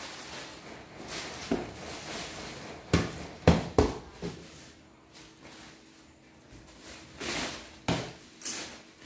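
A large black plastic sheet rustling as it is shaken out and gathered up, with a few short thumps and swishes in two clusters, about three seconds in and again near the end.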